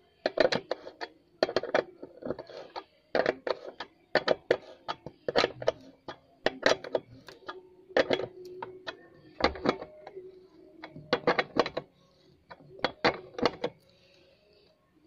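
Socket wrench tightening a nut on a motorcycle license-plate bracket, making sharp metallic clicks and rattles in quick clusters about once a second.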